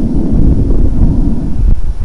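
Stethoscope recording of breathing over the chest: a low, rushing breath sound carrying fine crackles (crepitant rales). These are formed by tiny bubbles in fluid-filled alveoli and are typical of pneumonia.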